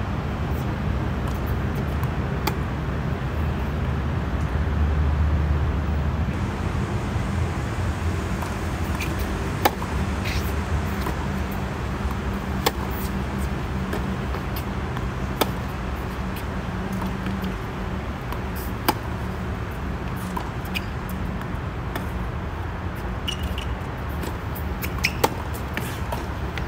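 Tennis ball struck by rackets in a baseline rally: single sharp hits every few seconds over a steady low rumble.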